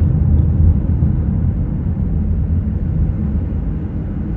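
Steady low rumble of a car's engine and tyres heard inside the cabin while driving on a snow-covered highway.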